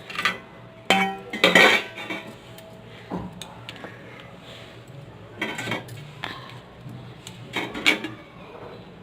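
Kitchen utensils clinking and clattering: a cooking pot, cup and spoon knocked and set down several times, some strikes ringing briefly. The loudest clatter comes about one and a half seconds in, and another near the end.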